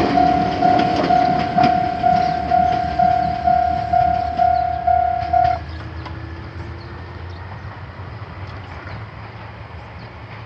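Railroad crossing alarm with an odd-sounding tone, ringing about twice a second. It cuts off about five and a half seconds in, once the train has passed. A low train rumble carries on and slowly fades.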